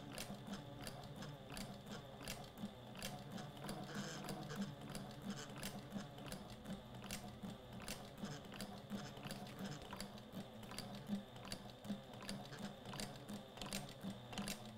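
Sailrite Fabricator industrial walking-foot sewing machine stitching slowly through a thick stack of material: a faint, even run of clicks, a few a second, over a low motor hum.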